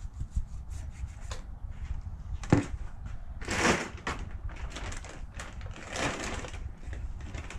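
A monkfish being gutted by hand on a plywood board: scattered handling noises, a knock on the wood about two and a half seconds in, and two longer rustling noises around three and a half and six seconds in.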